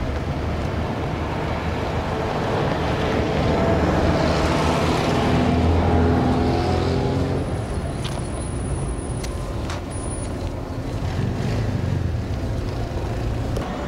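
Street traffic: a motor vehicle's engine swells to its loudest about four to six seconds in and fades again, over a steady background of road noise.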